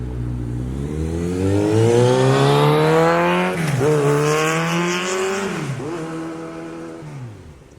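2018 Kawasaki Ninja 1000's inline-four engine accelerating hard through a Black Widow 4-2-1 exhaust with the baffle in. The pitch climbs and dips briefly at two upshifts, about three and a half and six seconds in, then falls and fades near the end.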